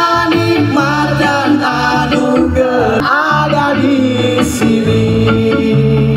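Live band music: several voices singing over bass and electric guitar, with a long held note in the second half.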